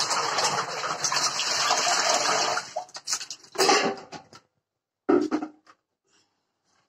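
Yogurt poured from a plastic bucket into an enamelled metal churn drum: a steady rushing pour for about three seconds, then a few shorter gushes and splashes as the bucket empties.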